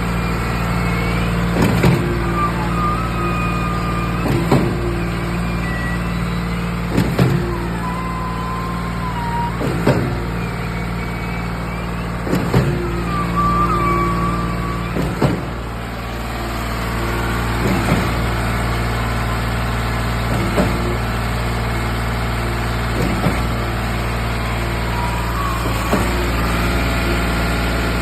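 A steady machine hum with a creak about every two and a half seconds, around ten times, some of them carrying a short high squeal. This is the unexplained creak in question.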